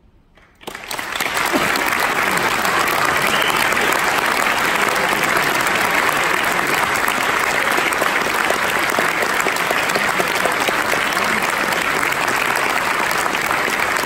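Audience applause that breaks out suddenly after a moment of silence about half a second in, then holds steady and full.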